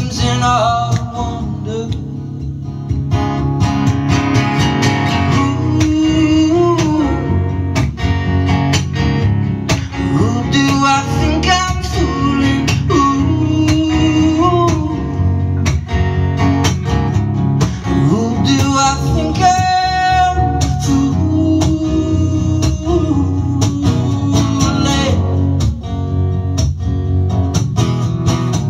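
Solo acoustic guitar strummed in a steady rhythm under a man's voice singing a slow melody, performed live.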